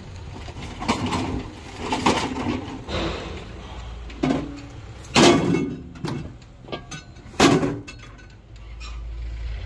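Metal scrap clunking and clattering as a microwave is dragged out of a van's load and set down on hard ground, with two loud metallic bangs about five and seven and a half seconds in.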